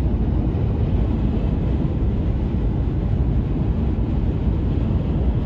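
Steady road and tyre noise inside a car's cabin while cruising on a motorway.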